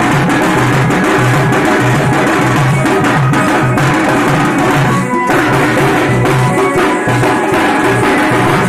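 Two-headed drums slung at the drummers' sides, beaten together in a fast, steady rhythm, loud and dense, with a brief drop about five seconds in.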